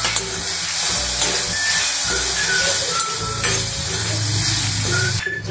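Chopped tomatoes, garlic and greens sizzling as they sauté in a metal kadai, with a steel ladle stirring and scraping through them.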